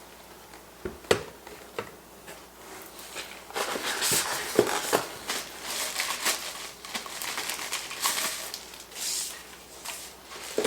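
Packaging being handled: a couple of light knocks, then from about three seconds in a run of crinkling and rustling of plastic wrapping as a part is unwrapped and taken out of the box.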